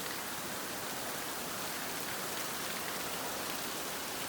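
Steady rain falling and pattering on hard surfaces.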